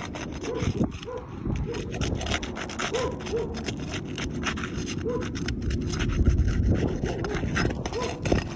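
A roof shingle being scraped and pried loose for replacement: irregular rubbing and scraping strokes with short clicks and small squeaks.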